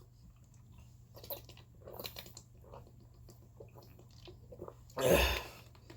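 A person sipping and swallowing water, with faint small mouth and gulping sounds. About five seconds in comes one short, loud cough from a sore throat after something went down the wrong pipe.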